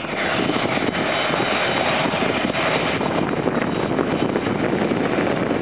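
Jet airliner taking off, its engines making a steady, dense noise.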